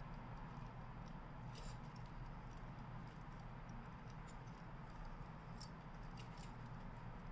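A few faint clicks and taps of hard plastic model-kit parts being handled and snapped onto the figure, over a steady low hum.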